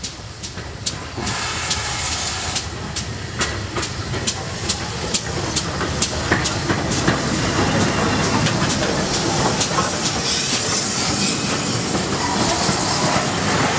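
Steam train passing close along a platform: a steam locomotive running tender-first, with hissing steam and an even ticking of about three a second, growing louder over the first several seconds as it draws near, then the rumble of its carriages rolling by on the rails.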